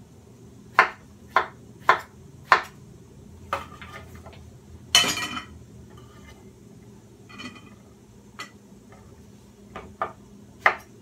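Chef's knife slicing cucumber on a wooden cutting board, sharp knocks about two a second. About five seconds in comes a louder clatter with a ringing tail, like dishware being handled. The slicing starts again near the end.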